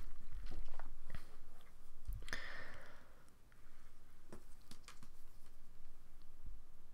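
Quiet, scattered small clicks close to the microphone, with a short hiss about two and a half seconds in.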